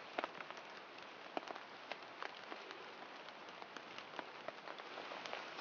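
Rain falling: a faint steady hiss with scattered single drops ticking at irregular moments.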